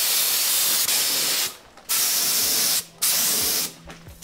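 Compressed-air gravity-feed spray gun hissing as it sprays primer onto a truck's body, in long hisses cut off three times by short pauses where the trigger is let off.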